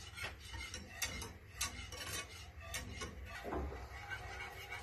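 A metal spoon stirring in a saucepan, clinking lightly and irregularly against the pan's sides and bottom.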